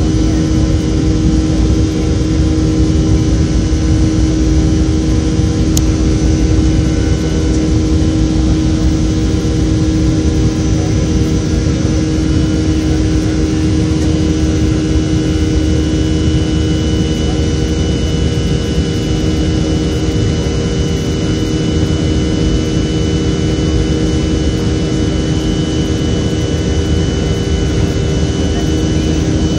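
Steady cabin noise of a Boeing 737's jet engines in flight, a constant hum with several steady tones running through it.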